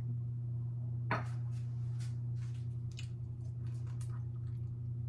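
A person sucking and biting on an orange slice as a chaser after a shot: a run of short wet, squishy smacks over about three seconds, after a short sharp sound about a second in. A steady low hum runs underneath.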